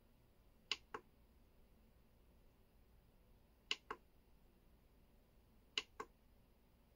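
EPOMAKER DynaTab 75x mechanical keyboard struck three times, a few seconds apart. Each strike is a pair of clicks about a quarter second apart, the second softer than the first.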